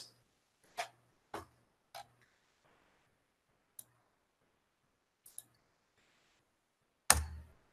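A few sparse, faint clicks of a computer mouse and keyboard while a file name is typed into a save dialog. A brief louder sound comes near the end.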